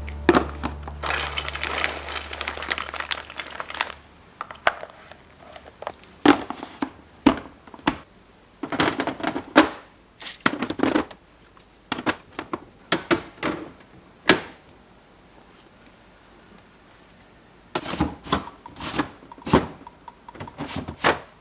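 Background music fading out over the first few seconds, then household handling sounds: irregular short knocks, clicks and crinkling, in clusters with quiet gaps between, from about 4 to 8, 9 to 15 and 18 to 21 seconds in.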